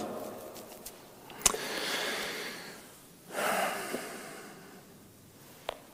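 A man breathing audibly twice, two long airy breaths about a second and a half apart, with a sharp click just before the first.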